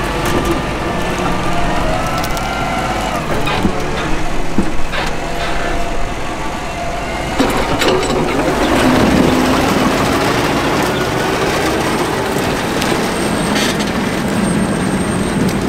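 Grimme SE 150-60 potato harvester running while lifting potatoes, with the pulling Fendt 724 Vario tractor's engine beneath it, a steady loud mechanical din. A few sharp knocks stand out between about three and five seconds in, and another near the middle.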